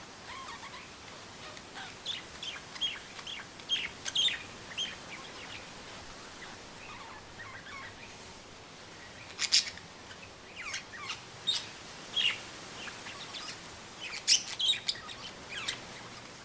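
Two budgerigars chirping in short, scattered chirps, with louder bursts of calls near the middle and toward the end. Steady wind rushes through the trees underneath.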